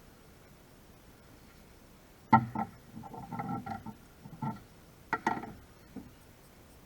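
A sharp click followed by light clatter and knocks from tools and parts being handled, with a brief metallic ring; a second pair of sharp clicks comes near the end.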